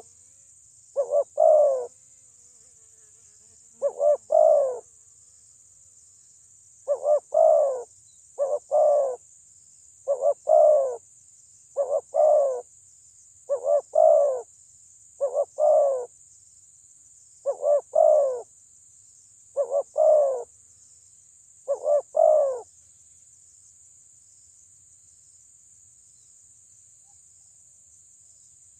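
Spotted dove cooing: about a dozen repeated calls, each two quick notes followed by a longer coo, roughly every two seconds, stopping about three-quarters of the way through.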